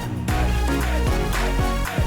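Electronic background music with a steady dance beat and heavy bass.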